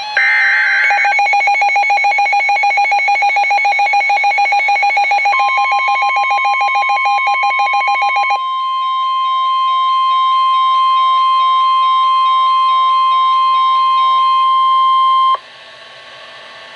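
NOAA Weather Radio alert signalling: a short final burst of the SAME digital header, then rapid electronic beeping, joined about five seconds in by the steady 1050 Hz warning alarm tone. The tone holds for about ten seconds and cuts off sharply, leaving a faint hum.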